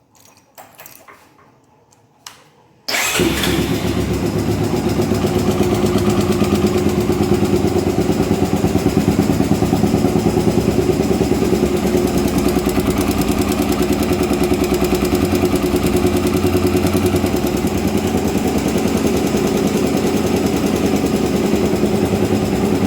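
Honda CBX 250 Twister's single-cylinder four-stroke engine starting suddenly about three seconds in, then idling steadily with a fast even beat. It carries a noise from the top end of the engine, which the mechanic traces to a loose camshaft-holder bolt.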